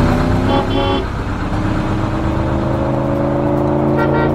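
Cartoon toy-vehicle engine sound effect: a steady engine hum that rises slowly in pitch, with short horn beeps about half a second in and again near the end.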